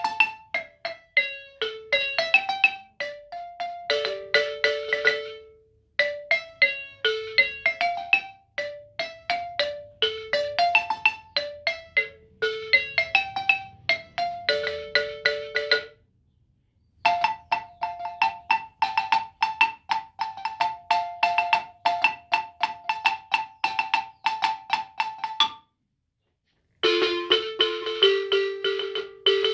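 Wooden marimba struck with two mallets, playing the first-voice melody in short phrases of single notes. About halfway through the playing changes to fast repeated strokes alternating between two notes, broken by two short silent gaps, and it ends on lower, denser notes.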